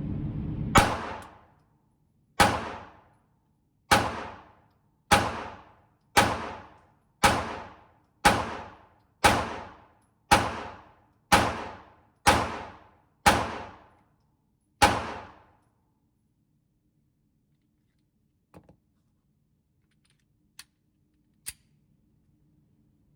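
Glock 26 9mm subcompact pistol fired thirteen times at a steady pace of about one shot a second, each shot echoing in an indoor range, followed by a few faint clicks.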